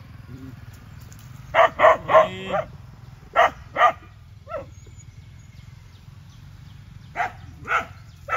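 A dog barking in short runs of two to four barks, with pauses of a few seconds between runs.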